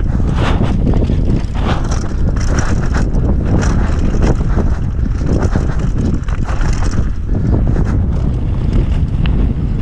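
Wind buffeting a GoPro's microphone as a mountain bike descends a rocky, gravelly trail, under a steady rumble. The bike rattles and clatters over the stones throughout.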